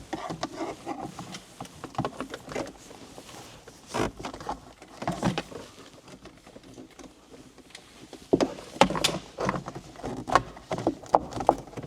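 Scattered sharp clicks, taps and rubbing of plastic interior trim being handled and fitted around the rear-view mirror cover, with a denser run of clicks in the second half.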